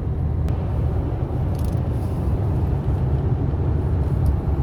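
Steady road and engine rumble of a car cruising on a highway, heard from inside the moving car.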